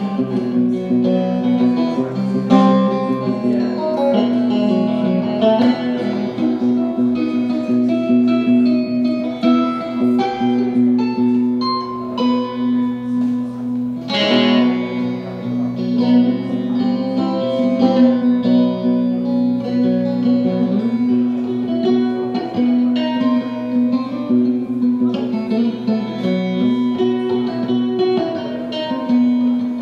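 Instrumental background music: plucked guitar notes over a steady low drone, with one strong struck chord about fourteen seconds in.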